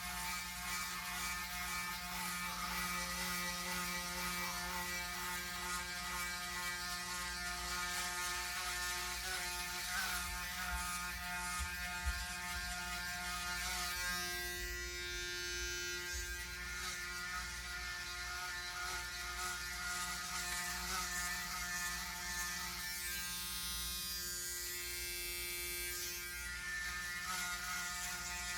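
Braun Series 9 Pro electric foil shaver, fitted with a new motor, running steadily as it is passed over the scalp in a head shave; its buzz shifts in tone a couple of times as the head moves.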